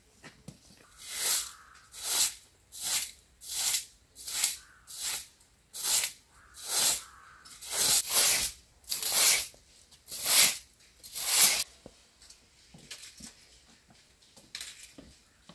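Straw hand broom sweeping a carpet in about a dozen brisk brushing swishes, roughly one every second, before stopping.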